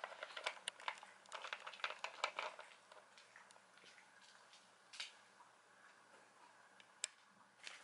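A cat crunching dry dental treats: a quick run of faint crisp crunches for about three seconds, then a few scattered ones.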